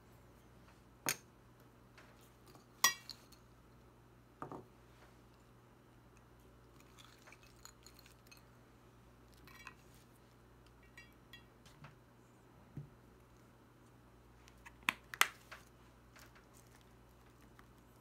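A metal spoon clinking against a ceramic plate a few times as bacon bits are spooned on, with a sharp clink about three seconds in and a close pair near the end. Softer taps fall between the clinks.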